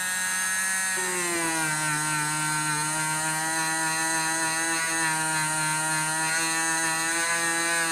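Dremel rotary tool's motor whining steadily as a wool felt buffing wheel spins against brass, buffing dry without compound. Its pitch drops a little about a second in, then holds steady.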